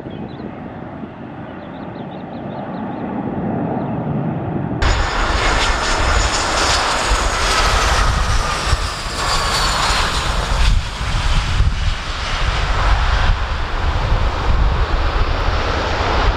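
Airliner jet engines. First a twin-jet airliner climbing away, a fainter rumble that grows steadily. Then, after a sudden cut nearly five seconds in, an Airbus A320 passing close over the runway: loud jet noise with slowly falling whines, and wind buffeting the microphone.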